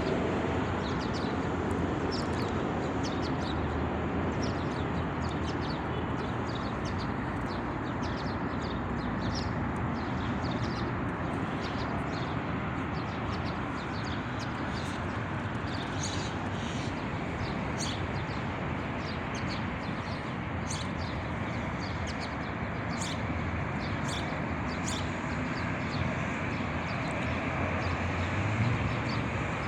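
Many small birds chirping in short, scattered calls over a steady background rush of noise.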